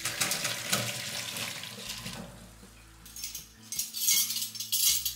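Hot water and boiled cauliflower florets poured from a steel pot into a wire-mesh strainer, splashing for about two seconds as the florets are drained. After a lull, short clinks and rattles of the pot and strainer come near the end.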